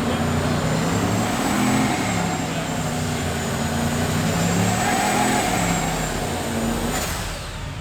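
Truck engine revving, its pitch going up and down several times, with the sound changing abruptly near the end.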